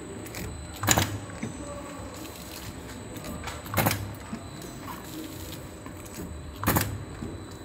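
KL-160YS vertical liquid sachet packing machine running, giving a sharp clack about every three seconds as it cycles, three in all, over a steady mechanical hum.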